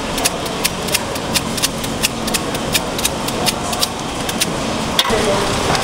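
Knife slicing through crisp peeled green mango in quick short strokes, about three crisp clicks a second as the blade cuts and taps, over a steady background hum.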